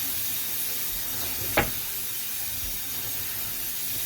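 Steady hiss of a pot cooking on the stove, with one sharp knock about a second and a half in.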